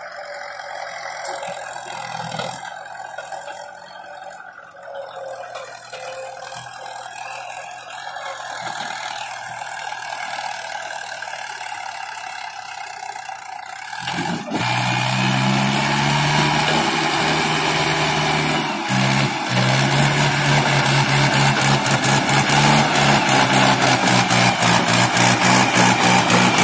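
Tractor diesel engine pulling two loaded sugarcane trailers and coming closer, growing louder. About halfway the engine note turns suddenly louder and fuller. In the last few seconds a fast, even firing beat is heard as the tractor passes close by.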